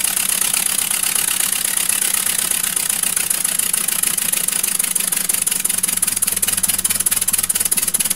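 Scratch-built two-cylinder, double-acting oscillating (wobbler) model engine running at speed on compressed air: a rapid, even stream of hissing exhaust beats, which stand out more sharply in the second half.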